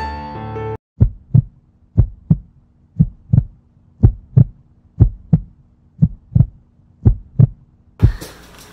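Heartbeat sound effect: paired low lub-dub thumps about once a second, some seven or eight beats, starting just after piano music cuts off about a second in.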